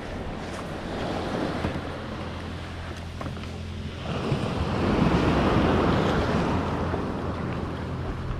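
Sea water splashing and rushing around an inflatable paddleboard, with wind on the microphone and a steady low hum underneath. A louder rush of water swells up about four seconds in and fades over the next few seconds.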